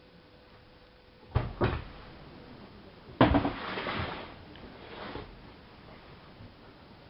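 Knocks and thuds from a Siemens iQ front-loading washing machine: two quick knocks, then a louder thud about three seconds in whose rumbling tail dies away over the next two seconds.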